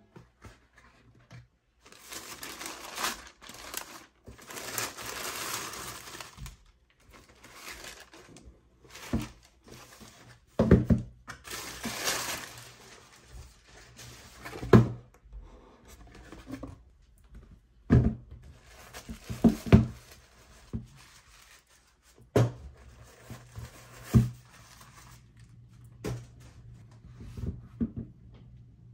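Shoebox packaging being opened and handled. Paper rustles and crinkles in several long stretches, broken by a handful of sharp knocks and thunks.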